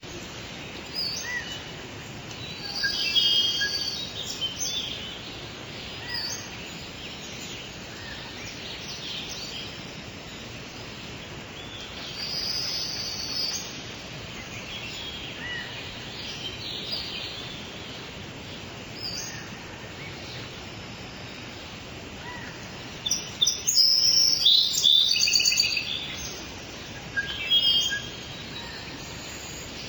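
Rainforest ambience: a steady background hiss of forest noise with many birds calling and chirping over it, in several busier flurries, the loudest a dense burst of calls a little after the middle.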